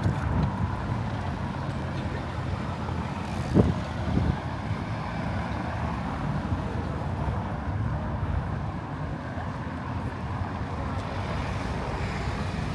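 Steady low rumble of motor traffic, with a short sharp knock about three and a half seconds in.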